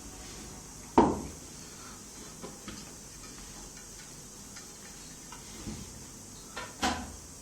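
Clicks and knocks of cable connectors and the metal case being handled while the hard disk's power and data cables are plugged into their sockets: one loud knock about a second in, a few light clicks, and a double knock near the end.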